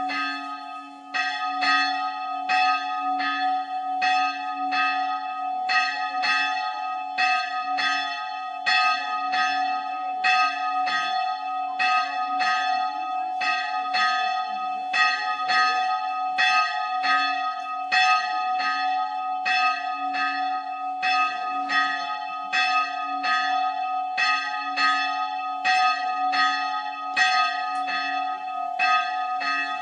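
Church bell of the Old Island Church on Spiekeroog ringing in quick, regular strokes, a little under two a second. Its deep hum rings on steadily between the strokes.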